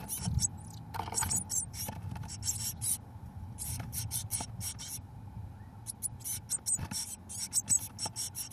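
Brood of 17-day-old blue tit nestlings begging with rapid, high-pitched calls in runs as a parent comes in to feed them. Scratching, scraping and a few light knocks come from the birds moving about in the wooden nest box.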